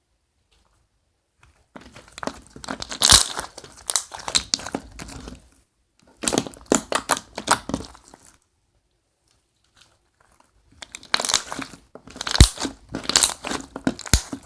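Homemade slime squeezed and worked in the hands close to the microphone, crackling and clicking in three spells with pauses between.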